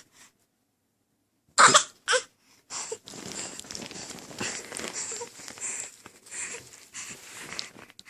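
A baby's put-on cough, two short loud coughs about a second and a half in: the fake cough she makes for attention or when she doesn't like something. A quieter, noisier stretch of sound follows.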